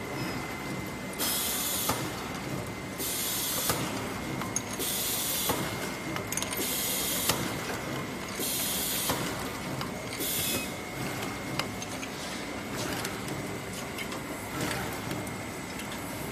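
Automatic tube and bottle cartoning machine running: a steady mechanical clatter with light ticks and a faint high whine. Short sharp hisses come about every two seconds and stop about ten seconds in.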